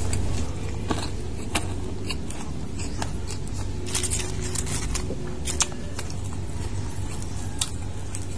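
Close-up crunching and chewing of crispy deep-fried pork intestine (chicharon bulaklak), irregular sharp crunches every second or so with a cluster of them about four seconds in. A steady low rumble runs underneath.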